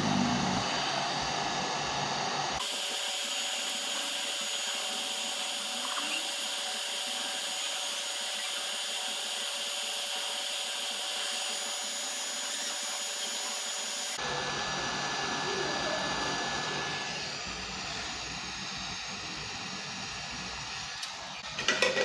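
Hot-air rework station blowing a steady hiss onto a laptop motherboard to desolder a surface-mount switching MOSFET, with a faint high steady tone in it. A few short knocks come near the end.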